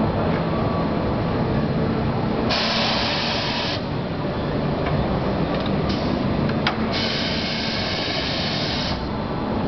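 Corghi AG50 tyre changer's pneumatic controls letting out compressed air: a hiss of about a second a few seconds in and a longer one of about two seconds later, with a sharp click between them. A steady low hum runs underneath.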